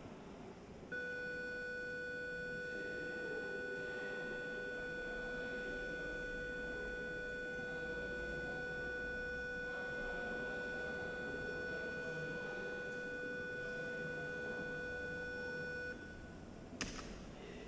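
A steady electronic tone holding one pitch at an even level for about fifteen seconds, then stopping, followed by a sharp click near the end.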